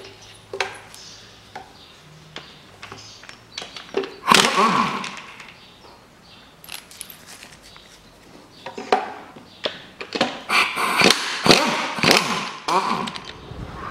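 Impact wrench undoing the intake manifold bolts, run in short bursts: one about four seconds in, then several in quick succession from about ten seconds in. Between the bursts come sharp metallic clicks of the sockets and extension.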